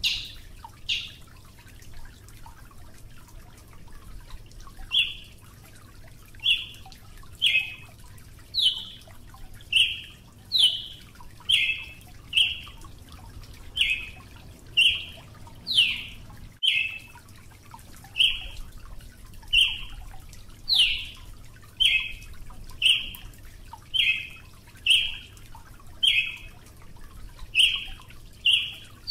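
Brazilian tanager (tiê-sangue, Ramphocelus bresilius) calling: a long series of short, sharp notes, some sliding downward, about one a second. There is a pause of a few seconds near the start.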